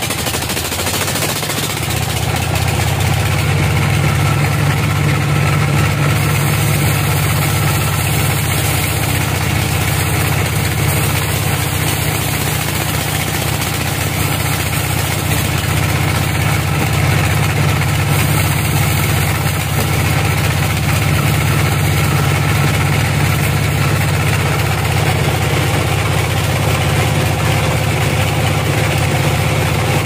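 Band sawmill's motor and belt drive running steadily with a loud, even low hum, idling between cuts.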